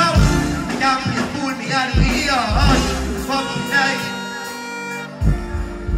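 Live dancehall music over a stage sound system: a deejay's voice over a heavy bass-and-drum riddim. About three seconds in, the bass and drums drop out, leaving held tones, and the bass slams back in near the end.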